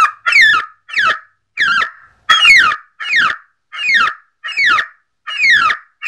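A Boom Blasters Turkey Distress Night Call electronic car horn playing its turkey distress call: a loud run of short cries, each falling in pitch, repeating roughly every two-thirds of a second.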